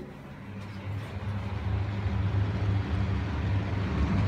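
Toilet flushing: water rushes into the bowl, growing steadily louder, over the steady low hum of an exhaust fan.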